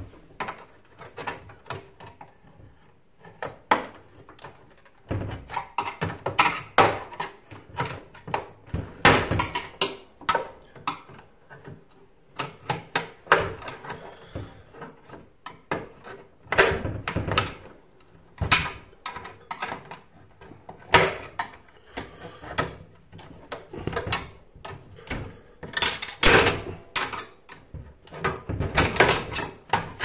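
Irregular plastic clicks, knocks and snaps from a microwave oven door being dismantled: its black plastic edge cover is pried off with a screwdriver.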